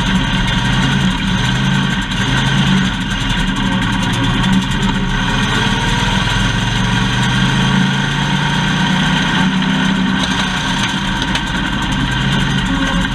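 Factory stock race car's engine running at low, fairly steady revs.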